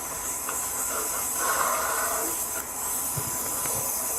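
Steady hiss of body-camera audio, with faint muffled sounds in the middle and a thin steady tone underneath.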